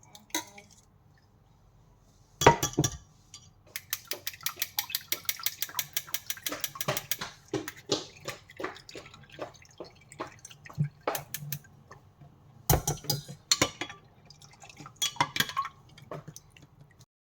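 Kitchen utensils scraping and knocking against a sieve and pot as boiled banana mixture is strained into syrup. There is a dense run of quick scrapes in the middle and a few louder knocks, one near the start and one toward the end.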